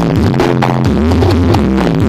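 Electronic dance music with a heavy bass line, played loud through a Blizzard Audio 'horeg' carnival sound system.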